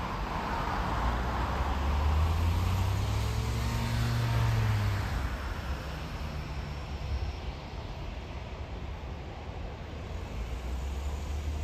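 Jet airliner taking off: a low engine rumble that swells, is loudest about four to five seconds in, then fades as the plane climbs away. Another low rumble builds again near the end.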